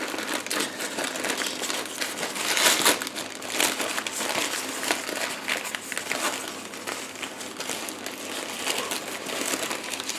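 Thin white packing paper crinkling and rustling without a break as hands unwrap it, with louder crackles about two and a half seconds in.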